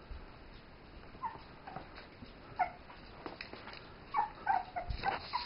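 Young puppies whimpering in short, high squeaks that fall a little in pitch, a few at first and coming quicker near the end, with a few light knocks among them.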